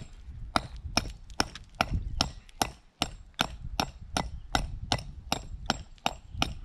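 Scutch hammer chipping at the cut edge of a concrete block, a quick steady run of sharp taps about two and a half a second with a brief pause midway, knocking off the rough bits left sticking out after the block was split.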